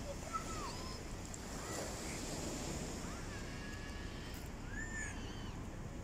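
Small waves washing steadily onto a sandy shore, with children's calls and shouts breaking in several times.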